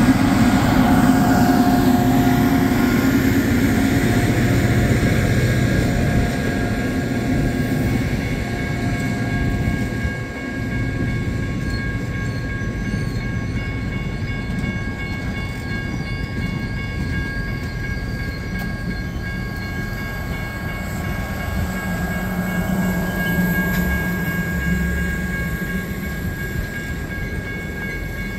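Heavyweight steel passenger cars rolling past on the rails: a steady rumble of wheels on track, with a few thin, steady high-pitched ringing tones above it. Slightly louder at first, easing a little after about ten seconds.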